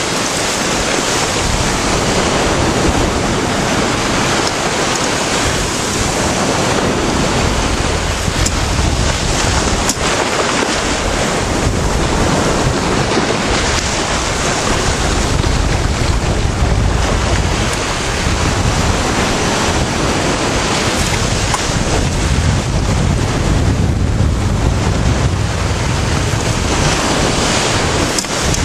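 Sea waves breaking and washing in, a continuous rushing noise, with wind buffeting the microphone as a low rumble that grows heavier in the second half.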